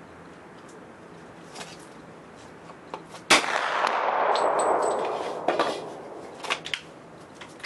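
A single shot from a KelTec Sub2000 pistol-calibre carbine in .40 S&W: one sharp crack about three seconds in, followed by an echo that rolls away over about two seconds. A few light clicks follow.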